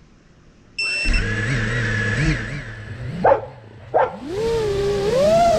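FPV quadcopter's brushless motors spinning up: a steady whine starts suddenly about a second in. Two quick throttle blips follow near the middle, then the pitch climbs as the drone lifts off.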